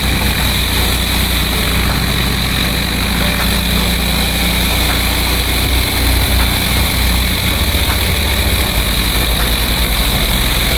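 12 GPM pressure washer's engine running steadily under load, with an even hiss of high-pressure water spraying from the surface cleaner on the concrete driveway.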